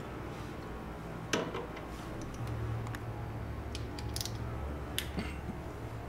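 A few light clicks and knocks of hand tools and metal suspension parts being handled, the sharpest about a second in, over a faint steady low hum.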